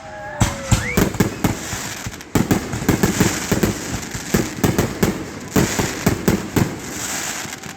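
Aerial fireworks bursting in a dense barrage of sharp bangs and crackling, many reports a second.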